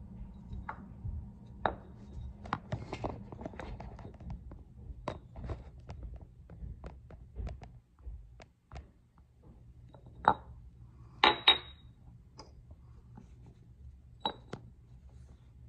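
Handling noise from the camera being picked up and repositioned: scattered clicks, taps and knocks, with a sharp double knock about eleven seconds in.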